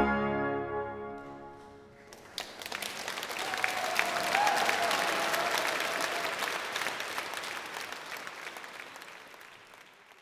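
The last chord of a cornetto and sackbut ensemble with organ dies away in a long church reverberation. About two seconds in, the audience starts applauding, and the applause gradually fades out near the end.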